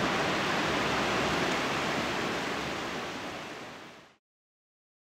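Steady rush of ocean surf on a beach, fading out to silence about four seconds in.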